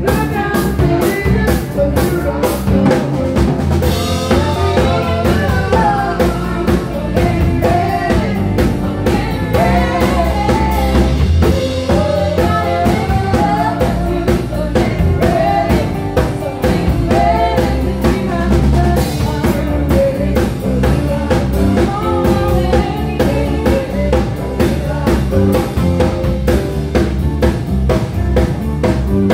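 Live band playing: electric guitar, bass and a drum kit keeping a steady beat with cymbals, with singing over it.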